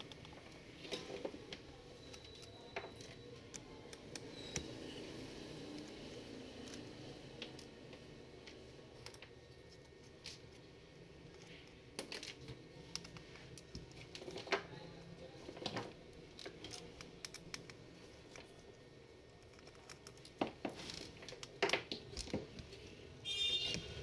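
Faint, scattered clicks and light scrapes of a hand screwdriver working screws out of an HP EliteBook 840 G3's metal inner frame, over a low steady background hum.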